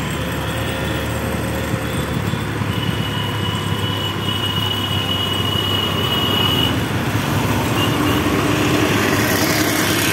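Steady rumble of a vehicle's engine and road noise while moving, with a thin high whine for a few seconds in the middle.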